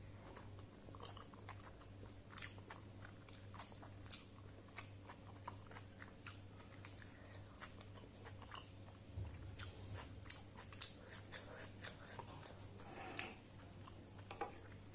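Close-up chewing of a soft steamed momo dumpling: irregular wet mouth clicks and smacks, over a steady low hum.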